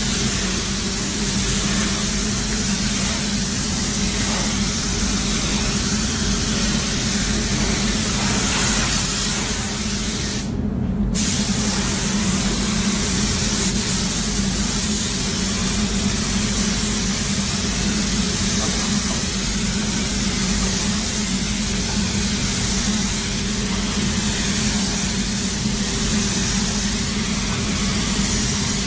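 Air-fed automotive paint spray gun hissing steadily as paint is sprayed, breaking off for about half a second near the middle when the spray stops, over a steady low hum.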